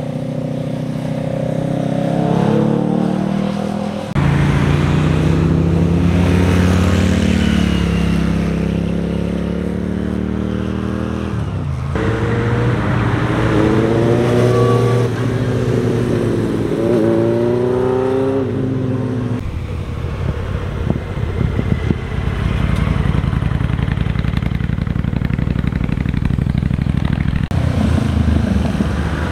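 Motorcycles riding one after another through a tight hairpin bend, their engines revving up and down as they lean through and accelerate out; one of them is a Suzuki GSX-R sport bike. The engine sound changes abruptly several times where separate passes are joined.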